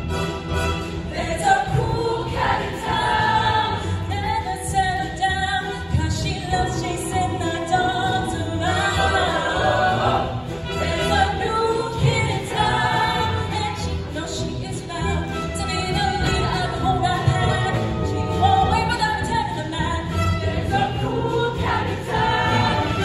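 Mixed-voice show choir singing an up-tempo number over a live instrumental band with a steady bass beat.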